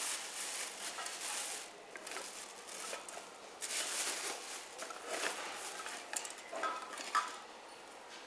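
Plastic bag rustling and crinkling in irregular bursts as a hand rummages through it, with a sharp knock near the end.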